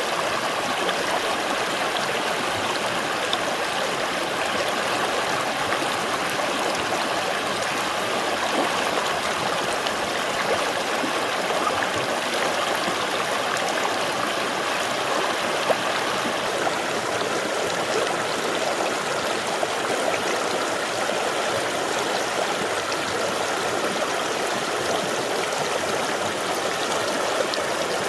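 Mountain valley stream rushing over rocks: a steady, even flow of water.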